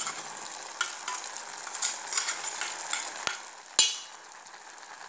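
Steel spoon scraping and stirring in a steel pot of wet, chunky jackfruit pieces and seeds: a run of scrapes and light clinks, with two sharp taps of metal on metal a little after three seconds in, then only a quieter hiss.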